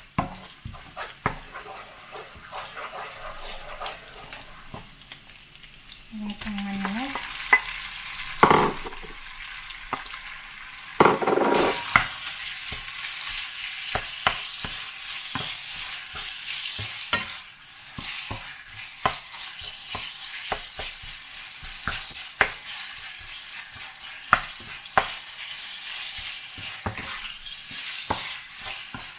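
Garlic and chili sizzling in hot oil in a nonstick wok, stirred and scraped by a wooden spatula with frequent sharp clicks. Partway through, diced raw chicken goes into the pan and the sizzle grows louder, with continued stirring.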